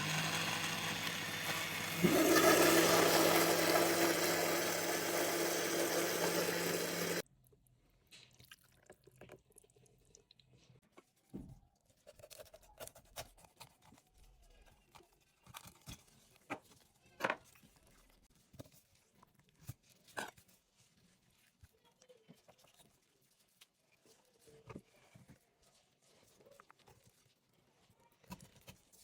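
Water running hard from a kitchen tap for about seven seconds, then shut off suddenly. Scattered light clicks and knocks of kitchen handling follow.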